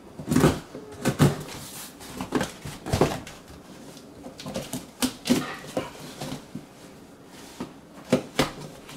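Scissors slicing through packing tape along the seam of a cardboard box, with the cardboard rustling: uneven scratchy strokes, the loudest in the first second and again near the end.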